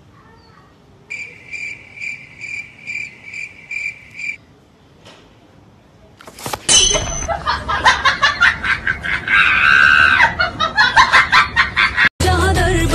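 A cricket-chirp sound effect: a short high chirp repeating about twice a second for some three seconds. After a pause, a loud stretch of laughter starts about six and a half seconds in.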